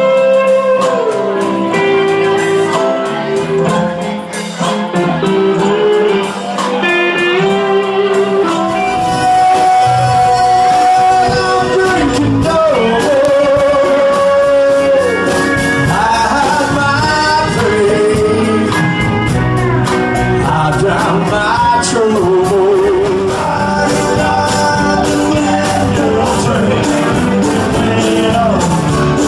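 Live country bar band playing a song with singing and electric guitar, recorded on a phone in the room. The bass end fills out about nine seconds in.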